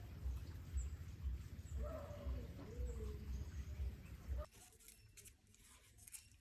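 Birds calling, with low wind rumble on the microphone. About four and a half seconds in it cuts to quieter, faint crackling and snapping as taro leaf stalks are peeled by hand.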